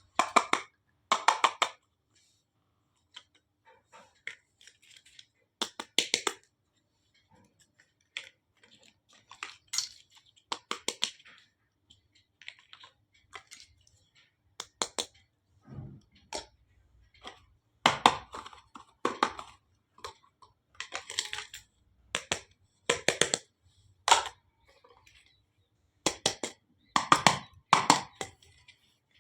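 Miniature steel toy cookware and utensils being handled and set down: scattered clinks and taps, some in quick runs, with short quiet gaps between.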